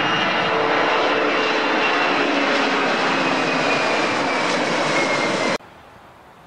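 Boeing 767 twin-engine jet airliner climbing out at takeoff power close by: loud, steady jet engine noise with a high whine that falls slightly in pitch as it passes. The sound cuts off suddenly about five and a half seconds in, leaving only faint background noise.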